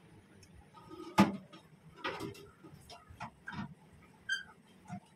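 Eating by hand off banana leaves: a string of separate clicks, smacks and crackles of fingers, leaf and chewing, the sharpest a crack about a second in. A brief high squeak sounds near the end.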